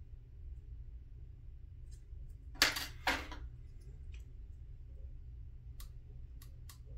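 Two quick snips of scissors cutting a strip of Bare Metal Foil, close together, then a few light clicks near the end.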